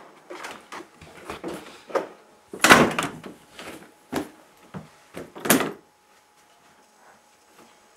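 Bags and luggage dropped and handled on a floor in a small room: a run of thumps, knocks and rustling, the loudest about three seconds in, stopping about six seconds in.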